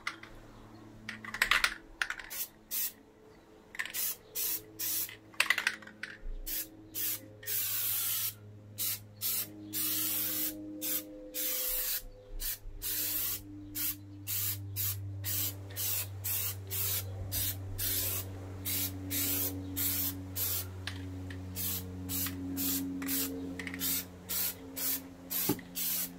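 Plasti Dip aerosol spray can hissing in many short bursts, about one or two a second with brief gaps between them, starting about a second and a half in.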